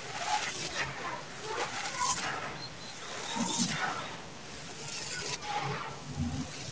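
Hands scooping up and dropping handfuls of dry, gritty sand-cement mixed with small stones: repeated crunching and pouring rustles, coming at uneven intervals.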